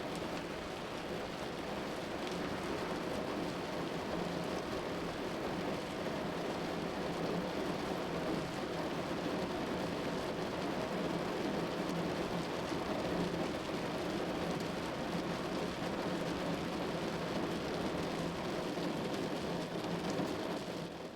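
Steady rain noise while a car drives on a wet road: an even hiss of rain and wet tyres, with no distinct claps or impacts.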